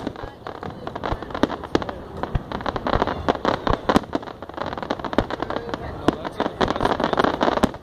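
Aerial fireworks shells bursting overhead: a dense, irregular run of bangs and crackling from the falling stars.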